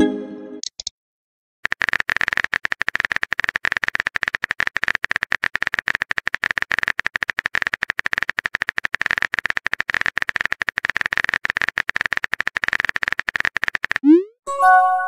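Rapid, steady clicking of a texting app's simulated keyboard as a message is typed out. Near the end a quick rising whoosh and a short chime of a few notes mark the message being sent, and a chime fades out at the very start.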